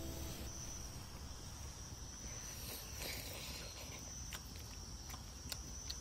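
Faint, steady high-pitched insect trill in the open air, with a few soft ticks in the second half.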